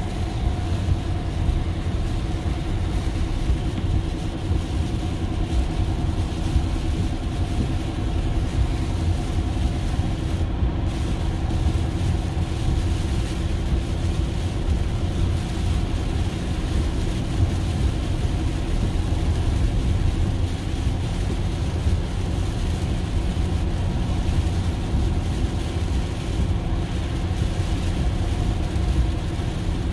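Steady road noise inside a Tesla electric car's cabin at highway speed in heavy rain: a low rumble with tyre hiss on the wet pavement and a faint steady hum.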